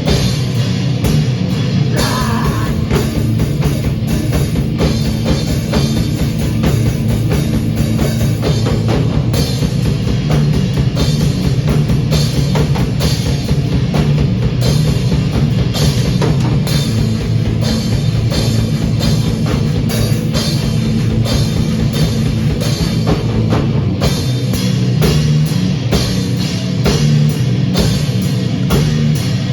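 Rock band jamming: a drum kit keeping a steady driving beat under guitar, loud and continuous.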